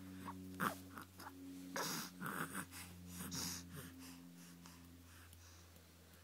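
Baby cooing and making small breathy sounds around a pacifier, in a cluster of short bursts with a few rising and falling tones, then quieter.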